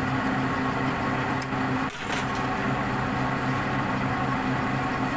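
A steady machine hum, with a couple of knife chops on a thick wooden chopping board as grilled sausage is cut, about one and a half and two seconds in.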